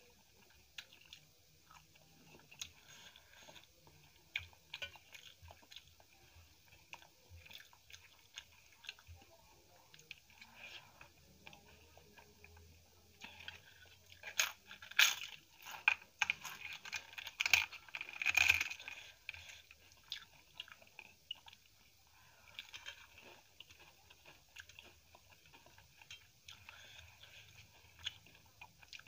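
Close-miked eating: quiet chewing and fingers mixing rice on a steel plate, with a loud stretch of crunching about halfway through as a crisp papad is bitten and chewed.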